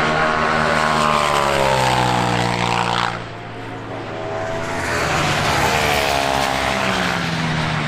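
Race-circuit sports cars passing at speed. One engine's note falls in pitch as it goes by and drops away suddenly about three seconds in. A second car then comes up and passes, its note also falling.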